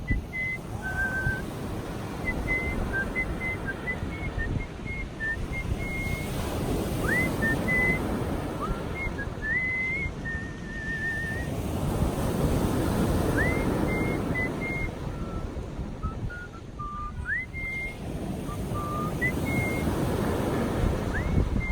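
A person whistling a melody: short high notes, several quick upward slides and a warbling trill. Underneath, sea surf washes in, swelling and fading every several seconds.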